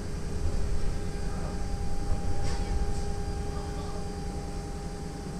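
Steady low rumble with a constant electrical hum inside the Antonov An-225's cockpit, from the parked aircraft's powered-up systems.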